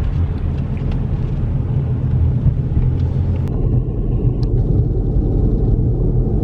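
Steady low rumble of road and engine noise inside a car's cabin while driving.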